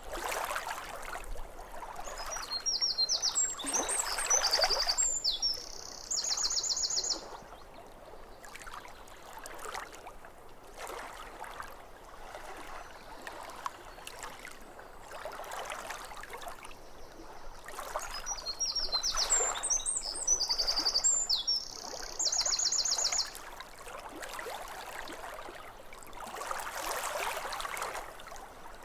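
Small waves lapping at a lake shore in repeated surges. Over them a songbird sings the same phrase twice, a few seconds in and again about two-thirds through: a run of quick notes ending in a fast trill.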